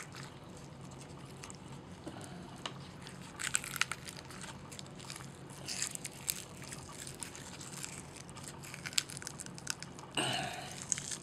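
Lily bulbs being pulled apart by hand: faint crackling and snapping of bulb scales and roots, in scattered clusters, the strongest about three and a half, six and ten seconds in.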